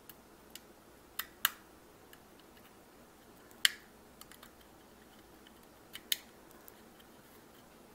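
Scattered sharp clicks and light taps as a spudger pries at an iPod Touch's screen bezel, working its small plastic clips loose. There are about half a dozen clicks, the loudest about three and a half seconds in.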